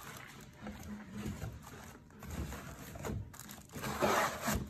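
Packing sounds: a crinkly foil bag rustling and crumpling as it is handled and set into a cardboard shipping box. The rustle is loudest about three-quarters of the way through.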